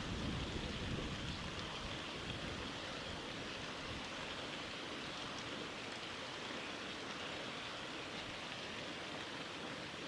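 Steady rush of flowing water from a mountain river, with a low wind rumble on the microphone that fades out over the first couple of seconds.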